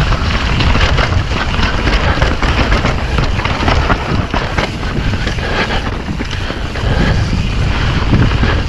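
Mountain bike descending a rough dirt trail: tyres rolling over the ground and the bike rattling with frequent small knocks, under heavy wind noise on the microphone.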